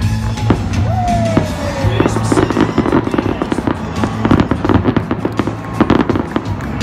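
Fireworks going off: aerial shells bursting and fountains crackling in a dense run of bangs and pops, over music playing.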